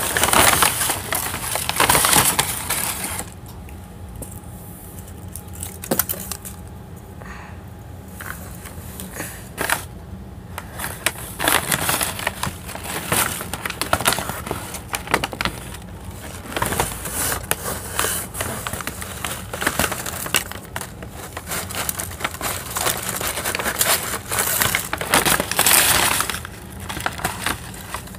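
Crinkling and rustling close to the microphone: foil candy wrappers, paper packaging and bedding being handled, in irregular crackly bursts. It is loudest in the first few seconds and again near the end, with scattered lighter crackles in between.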